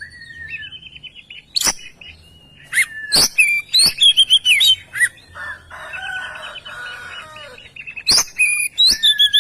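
Oriental magpie-robin (kacer) in full, loud song: a varied run of clear whistled notes and trills, broken by sharp, cracking notes and a harsh, buzzy phrase in the middle. This is the bird in top singing form ('gacor').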